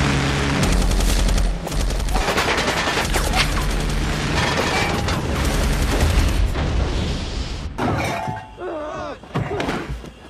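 Film battle sound mix: rapid automatic gunfire and explosions over a dramatic music score. The firing stops about eight seconds in, giving way to quieter gliding sounds.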